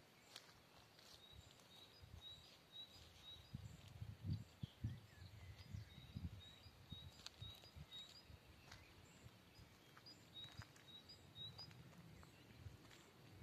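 Near silence: faint outdoor ambience with soft, irregular low rumbles and quiet runs of short, high, evenly repeated bird chirps, one about a second in and another near the end.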